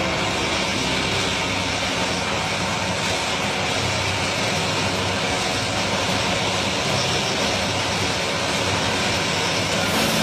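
Jet engines of a Boeing 747-8 taxiing at low power, a steady even hum and hiss with no changes.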